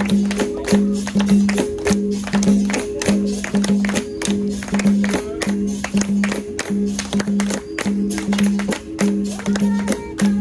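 Capoeira roda music: a berimbau repeats a short rhythmic figure of held low notes, with many sharp percussion strikes from a pandeiro and drum over it several times a second.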